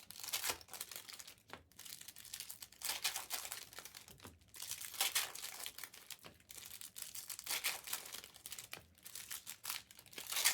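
Topps Chrome trading-card pack wrappers being torn open and crinkled, with the rustle of cards being handled, in short irregular spells.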